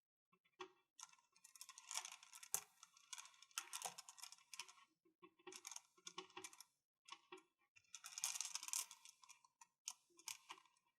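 Small crystals clicking and rattling together, quietly, in short clusters of taps every second or two.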